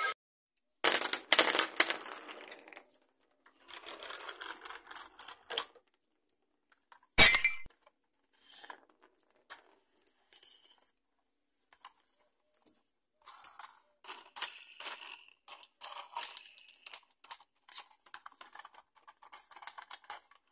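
Hard plastic toys handled on a tabletop: scattered clicks, clinks and rattles, with one loud knock about seven seconds in.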